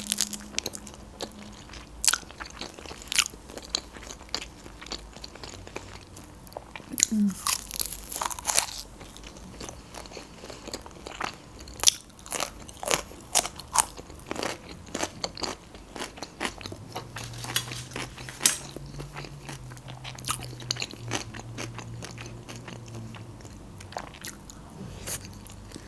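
Close-miked eating: crisp bites and crunching of a roasted nori sheet wrapped around raw salmon and rice, then the crunch of a fresh cucumber stick, with wet chewing between the bites. A low hum from the eater is heard partway through.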